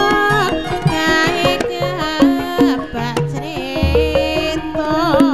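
Music with fast drum strokes under a pitched melody; about five seconds in, a melody line with a wide vibrato comes in.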